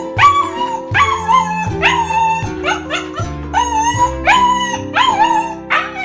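German Shepherd puppy whining in short rising, wavering cries, about two a second, over background music.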